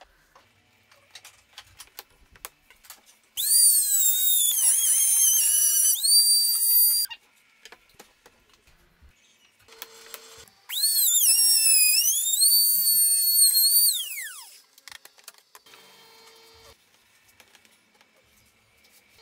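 Compact trim router running twice for a few seconds each, a high whine that dips in pitch as the bit cuts into the wood. The second run ends in a falling whine as the motor winds down.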